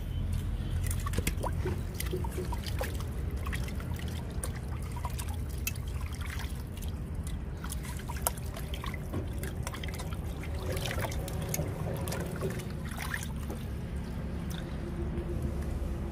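Water trickling and pouring, with many small clicks and knocks over a steady low hum.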